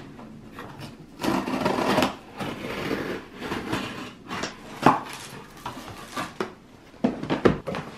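Scissors slitting the packing tape along the top of a cardboard shipping box, a rasping scrape of blade on tape and cardboard, then the cardboard flaps pulled open with rubbing and a few sharp knocks.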